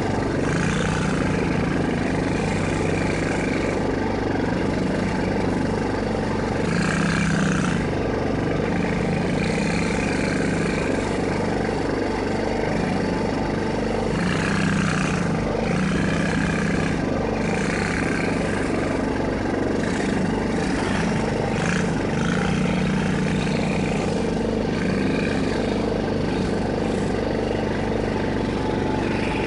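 Small 110 cc ATV engine running under throttle as it is ridden through mud, its pitch rising and falling again every second or two as the rider works the throttle.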